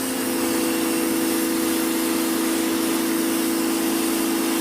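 Titan electric pressure washer running steadily, its motor and pump giving a steady hum with a whine over the hiss of the water jet.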